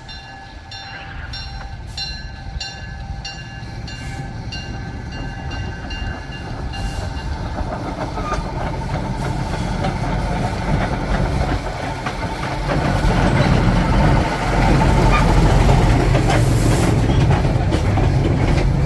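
Narrow-gauge train running and drawing closer, its low rumble growing steadily louder, with regular clicking over the first several seconds.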